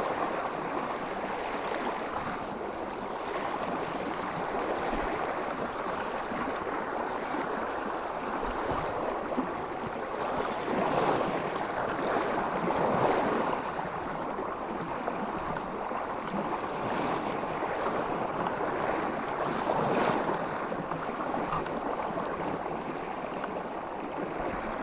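River running high and fast, a steady rushing of water with a few brief swells in the rush.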